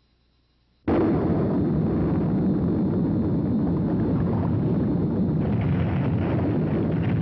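Volcanic eruption sound effect: a sudden explosive blast about a second in, followed by a steady, deep rumble.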